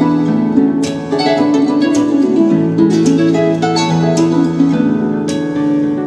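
Calm instrumental background music: plucked-string notes over held chords, with a bright new note striking about once a second.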